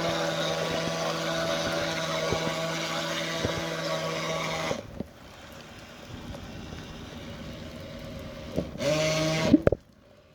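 Nikko Torpedo RC boat's 9.6-volt electric motor and propeller running at a steady hum, then cutting off sharply about five seconds in. Near the end the motor gives a short burst that rises in pitch before it stops.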